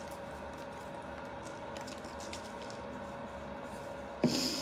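Faint rustling and light handling noise from a hand moving through hair and against clothing, over a steady low hum. Near the end comes a short, louder voice sound.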